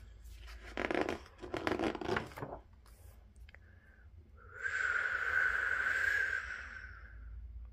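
A paper book page rustling as it is turned, then one long breathy 'whoooosh' blown by a person's mouth in imitation of wind through trees.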